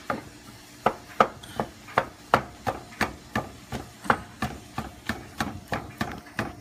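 Wooden spatula stirring food in a stainless steel pan, knocking and scraping against the pan about three times a second.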